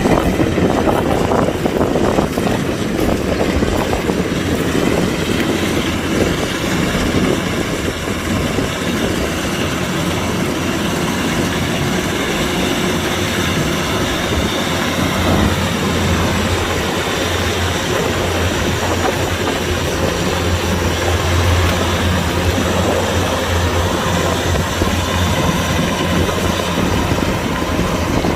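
Kubota combine harvester running steadily: a constant engine drone with a strong low hum that grows a little stronger in the middle.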